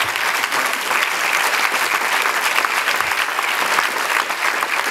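Theatre audience applauding, dense steady clapping.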